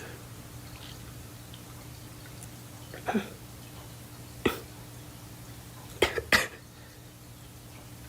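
A girl coughing: a single cough about three seconds in, another about a second and a half later, then two quick coughs close together about six seconds in.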